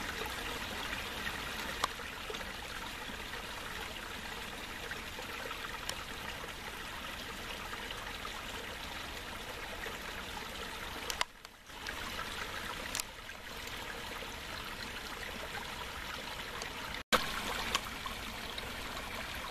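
Steady trickle of running water in a backyard pond, dipping briefly about eleven seconds in and cutting out for an instant near the end.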